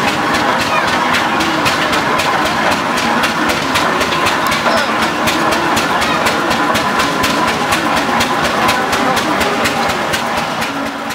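An old engine running steadily with a fast, even beat of knocks and clicks.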